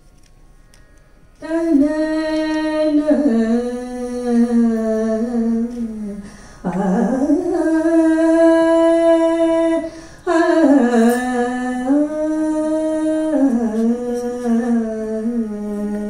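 A woman singing a Kannada mukthaka verse solo, in three long melodic phrases of held notes that slide between pitches. She begins about a second and a half in, after a quiet pause.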